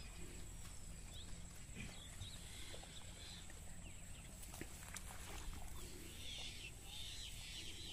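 Quiet open-field ambience: a low steady rumble with faint, scattered small chirps, a little busier near the end.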